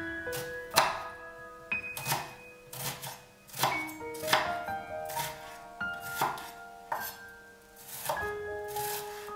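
Knife chopping on a cutting board in separate, irregular strokes, roughly one a second, the loudest about a second in, over background music with held melodic notes.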